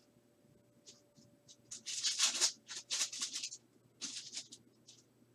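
Trading cards and a foil card-pack wrapper being handled: a few short rustling, sliding sounds, the loudest run about two to three and a half seconds in and another around four seconds.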